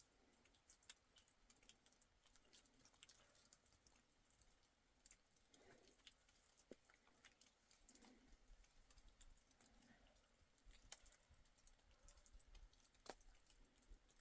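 Near silence with faint, scattered small clicks and crackles at irregular intervals.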